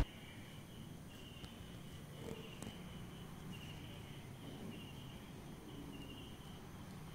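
Crickets chirping faintly, a high trill coming in short pulses, over a low steady background hum.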